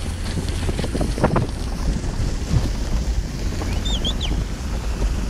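Wind buffeting the microphone: a steady low rumble with a noisy hiss over it. A faint, short high-pitched chirp comes about four seconds in.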